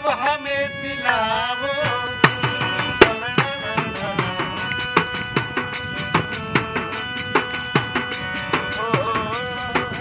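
Harmonium playing sustained chords and melody over a steady beat of hand strikes on a frame drum. A voice briefly sings a wavering phrase in the first two seconds.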